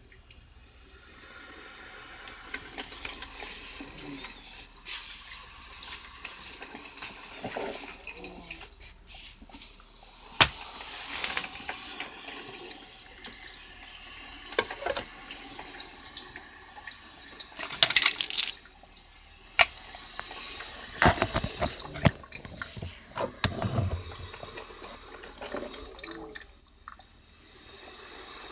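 Braun 10-cup drip coffee maker (type 4085) brewing: hot water gurgling and hissing through the machine, with irregular sharp pops and spits.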